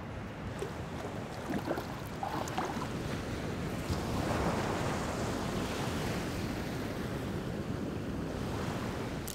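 Ocean surf: waves breaking and washing onto the shore, a steady rushing that grows louder about four seconds in.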